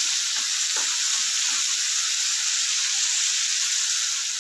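Chopped onions and whole spices sizzling steadily in hot oil in a kadhai, frying toward golden, with a wooden spatula scraping through them a few times in the first couple of seconds.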